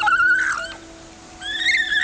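Vicuña calling twice with a high, wavering cry. A short call comes first, then a longer one starts about a second and a half in.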